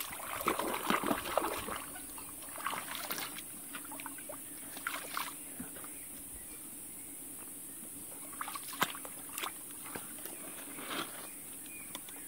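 Hands sloshing and splashing in shallow stream water around a rock, with the stream trickling steadily. The small splashes come irregularly, busiest in the first couple of seconds and in scattered moments after.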